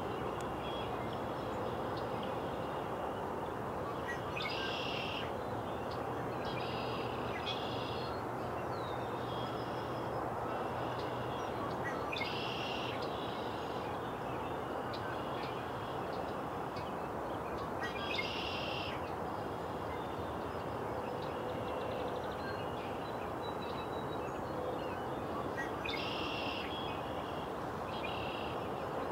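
A bird calling repeatedly, short high calls of about half a second each recurring every few seconds, over a steady background hiss.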